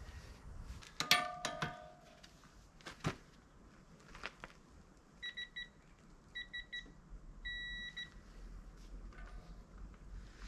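Digital torque wrench beeping while a mulcher tooth bolt is tightened: two groups of quick short beeps, then one long beep, its signal that the set torque is reached. A metallic clank with a brief ring comes about a second in, and a sharp click near three seconds.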